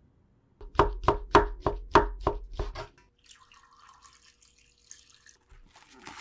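A run of about eight quick, evenly spaced ringing taps, followed by a stream of water poured into a glass dish of dry glass-noodle vermicelli. Near the end comes the crinkle of plastic wrap being pulled over the dish.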